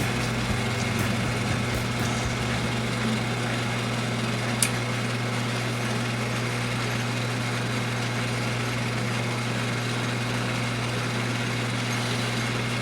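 Atlas metal lathe running steadily: an even motor hum with gear-train and leadscrew noise, and one sharp click a little under five seconds in.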